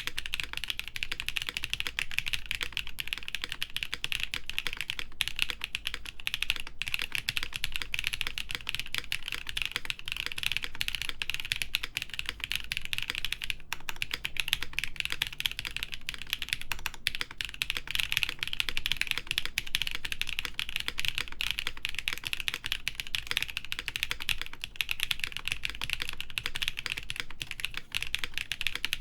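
Continuous fast typing on a Gray Studio Think 6.5 v3 mechanical keyboard with lubed Designer Studio Graphite Gold linear switches, an FR4 plate and GMK keycaps: a dense, steady run of keystroke clacks.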